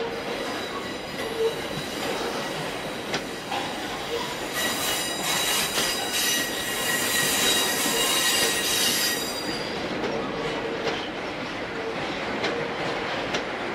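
Freight train of loaded double-deck car-carrier wagons rolling past, with a few sharp clacks of wheels over rail joints. From about four and a half seconds in until about nine and a half seconds, the wagons' running gear gives a high, ringing metallic squeal.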